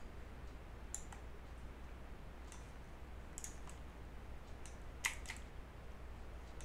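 Scattered faint clicks of a computer keyboard and mouse as shortcut keys are pressed and vertices are dragged, over a faint steady low hum.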